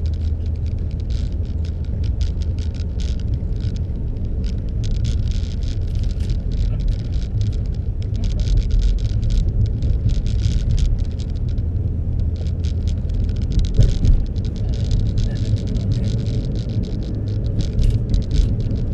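Car engine running with a steady low rumble, overlaid by dense, irregular clicks and crackles.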